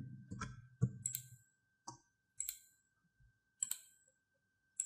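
Computer mouse clicking, about eight short, sharp clicks at irregular intervals, some with a soft thud under them.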